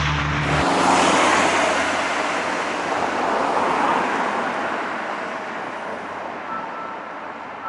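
A broad rush of passing road traffic swells about a second in and slowly fades. Near the end a faint, steady warning buzzer from the pedestrian railway crossing begins to sound.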